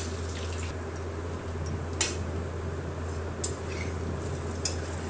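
Whole boiled eggs sizzling as they shallow-fry in hot oil in a metal kadai, with a few sharp clicks of a slotted spatula against the pan as they are turned, the loudest about two seconds in.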